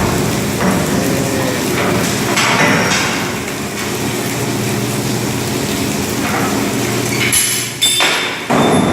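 Meat-processing line noise: steady machinery hum with metal clanking and clinking, and near the end a brief high metallic squeal.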